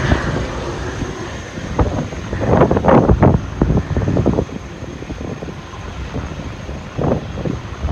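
Airbus A380 jet engines running at taxi power, a steady low rumble, with irregular gusts of wind on the microphone a few seconds in and again near the end.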